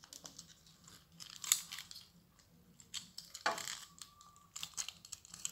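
Plastic parts of a Springer Siege Transformers figure clicking and knocking as it is handled and its pieces pushed and clipped together: scattered short clicks, the loudest about a second and a half in and about three and a half seconds in.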